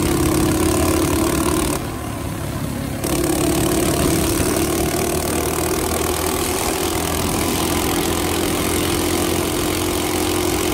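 Coleman CT200U minibike's 196cc single-cylinder four-stroke engine running while riding, a steady drone. The throttle is eased off briefly about two seconds in, then the engine pulls steadily again.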